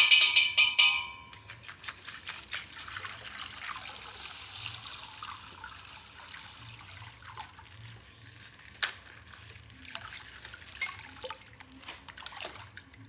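Plastic toy packaging rustling and crinkling as it is opened. The crackle is densest in the first half, then thins to scattered clicks and taps.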